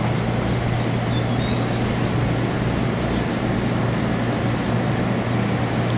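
Steady low hum and rumble of a gondola lift cabin running along its cable, heard from inside the cabin.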